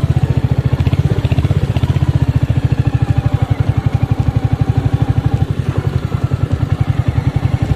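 Royal Enfield Hunter 350's single-cylinder engine running steadily at low revs, with a rapid, even beat.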